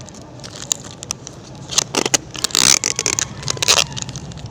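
Scraping and crackling handling noises of the packaged tire repair kit and tape being worked onto the scooter, in a few short bursts about two and three and a half seconds in, over a steady low hum.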